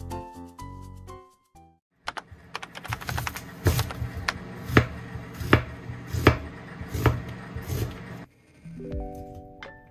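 Kitchen knife slicing an onion on a bamboo cutting board: sharp knocks of the blade striking the board, the strongest roughly one every three-quarters of a second, with lighter crunching clicks of the onion between. Short piano-like music plays before the cutting starts and comes back near the end.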